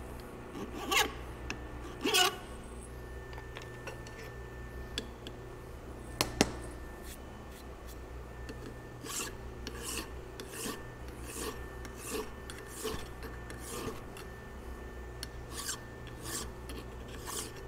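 A hand file rasping across a metal driveshaft yoke, in a regular run of strokes about three every two seconds from about halfway on. Earlier there are a few scattered strokes and handling noises, with a sharp metallic click about six seconds in.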